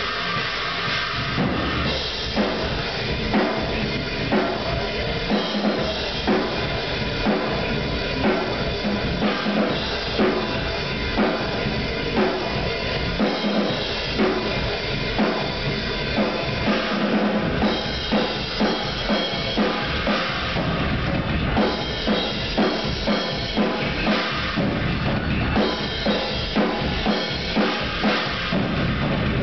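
PDP drum kit played hard: bass drum, snare and cymbals in a fast, busy pattern with regular loud accents.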